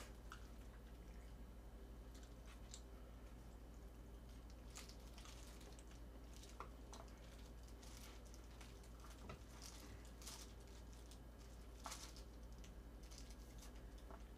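Near silence: faint, scattered light clicks and crinkles of food being handled with plastic-gloved hands and chopsticks, over a steady low hum.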